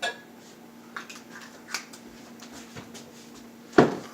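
Kitchen handling noises: scattered light clicks and rustles, with a louder knock near the end, over a steady low appliance hum.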